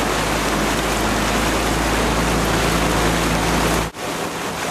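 Steady rush of water and wind noise with a low steady hum beneath it, as heard while moving alongside racing kayaks on the water; about four seconds in it cuts off sharply and comes back without the deep rumble.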